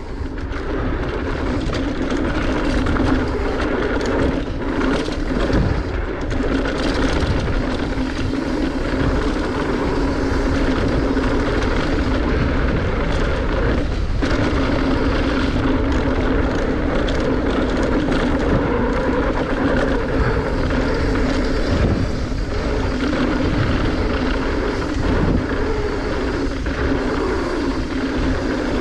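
Mountain bike descending a dirt trail at speed: a steady rush of wind on the microphone mixed with tyre noise and the bike's rattle over the ground.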